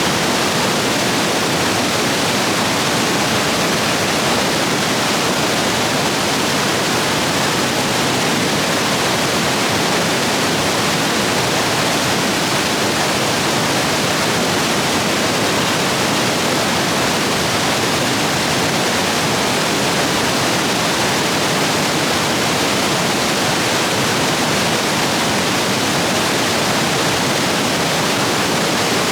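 Stream rapids rushing, swollen after heavy rain: a loud, steady wash of water that does not change.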